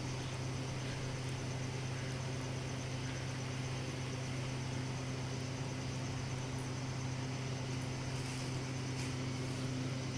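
A steady, low mechanical hum with an even hiss, unchanging throughout.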